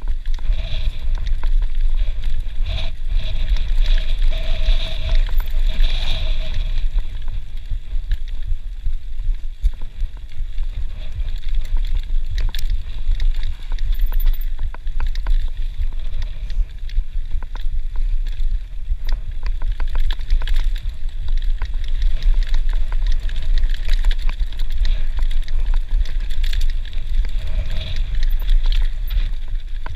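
Mountain bike riding fast over a rough dirt and stony singletrack, the bike rattling and clattering in quick clicks over the bumps, under steady low wind buffeting on the action camera's microphone.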